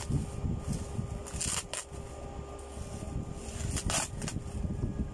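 Plastic bubble-wrap packaging rustling and crinkling as it is handled and cut open with scissors, with a few sharper crackles about a second and a half in and again near four seconds in.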